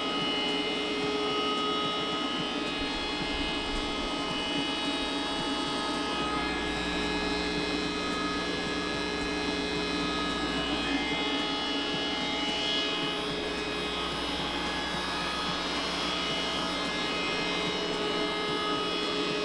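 Fuji Paudal Pulverizer hammer mill running empty, a steady motor hum with a whine made of several steady tones.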